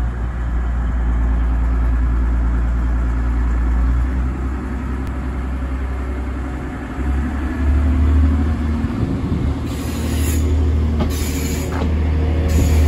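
Class 185 diesel multiple unit running under power as it pulls past close by, a steady low engine drone whose note shifts about seven seconds in. Short rushes of noise come near the end as the carriages go by.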